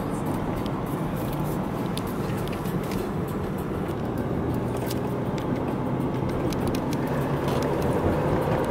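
Ford car's engine and tyre noise heard from inside the cabin while driving, a steady hum whose engine note rises a little near the end as it speeds up.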